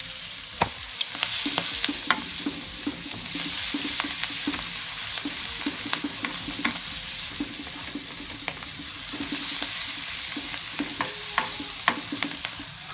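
Sliced shallots, garlic and red chillies sizzling in oil and margarine in a stone-coated wok, stirred with a plastic spatula. It scrapes and clicks against the pan at irregular moments over a steady hiss.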